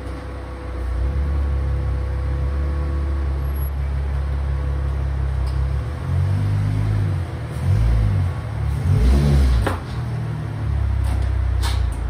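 2014 Ford Mustang's 3.7-litre V6 engine running at low revs under load as the car is driven up onto ramps. About halfway through it rises and falls in a few short surges of throttle, then settles back to a steady low note.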